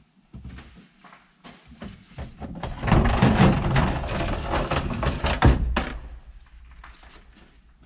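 Folding camping table being collapsed and lifted out: a dense clatter of knocks from its legs and tabletop, starting about three seconds in and lasting about three seconds, with a few lighter knocks before it.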